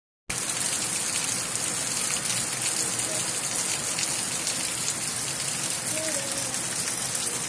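Steady rain falling on foliage and floodwater, heard as a dense, even hiss.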